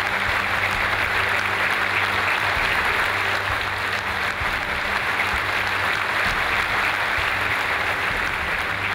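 Audience applauding steadily as a team walks up to receive an award.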